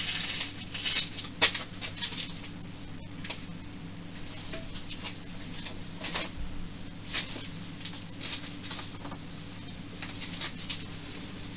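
A cloth rag scrubbing and wiping oily metal lathe parts: irregular scratchy rustles with small clicks of handled metal, and one sharper knock about a second and a half in. A steady low hum runs underneath.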